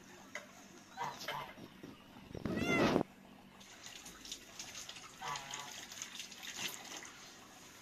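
A cat meowing a few times. The loudest meow comes about two and a half seconds in and lasts about half a second, with softer, shorter meows around it.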